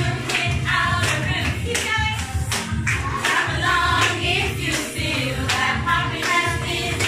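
A group of voices singing together, like a choir, with hand claps on the beat about twice a second.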